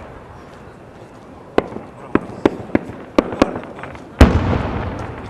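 Fireworks: half a dozen sharp bangs in quick succession, then, about four seconds in, one loud deep boom that rolls away in a long echo as a 6-inch (No. 5) round aerial shell bursts.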